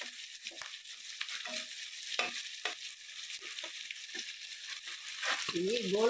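Chicken feet deep-frying in hot oil in a kadai, a steady sizzle. A metal slotted spatula knocks and scrapes against the pan several times as the pieces are stirred.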